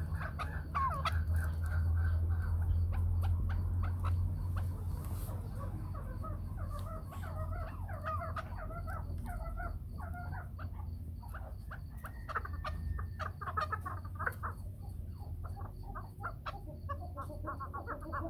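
Chukar partridges calling: a long run of short, repeated clucking chuck notes, over a steady low hum.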